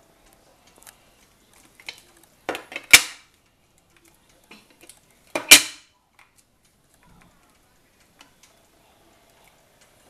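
Hard plastic PCGS coin slabs clacking as they are handled and turned over: a few light clicks, then two loud sharp clacks about two and a half seconds apart.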